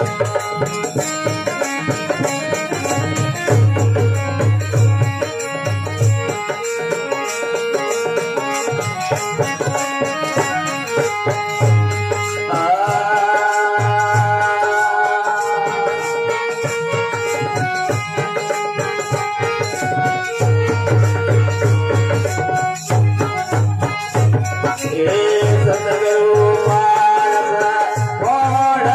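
Marwari folk bhajan accompaniment without singing: a harmonium plays the melody in long held notes over the beat of a dholak, with a tandura's drone behind.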